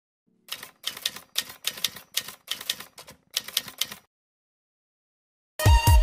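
Typewriter keystroke sound effect: a fast, uneven clatter of keys in short clusters for about three and a half seconds. After a short silence, loud electronic music with heavy bass beats starts near the end.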